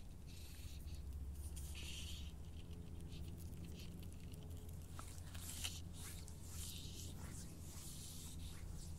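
Faint rustling and scattered light irregular ticks as a fly line and fly rod are handled by hand, over a low steady hum.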